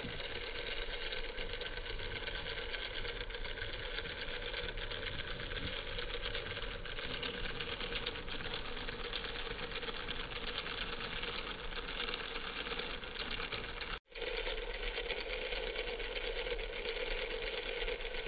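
Homemade miniature wet grinder running: its small electric motor turning the steel drum under the stone roller, with a steady buzzing rattle as rice grains are ground. The sound drops out for an instant about 14 seconds in, then carries on unchanged.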